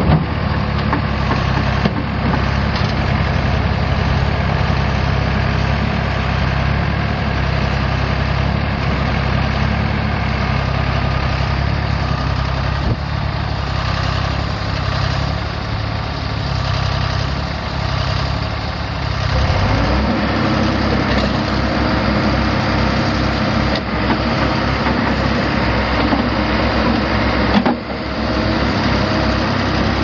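The four-cylinder turbo diesel engine of a 2007 Terex 760B backhoe runs steadily at idle. Its note changes about two-thirds of the way through.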